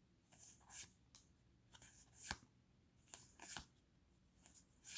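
Pokémon trading cards handled by hand, slid and flipped one behind another as a pack is looked through: a string of faint, short flicks and rustles.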